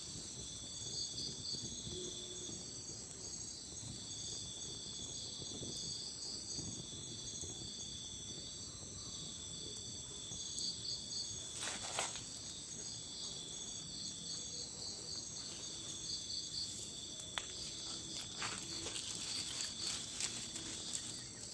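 Nighttime insect chorus of crickets: a steady high-pitched drone, with short chirping trills repeating every second or few. A few scattered clicks.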